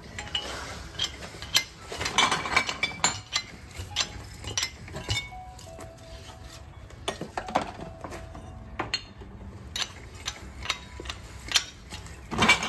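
Glass bottles clinking and knocking as they are handled, irregular clinks several times a second with a few short ringing notes.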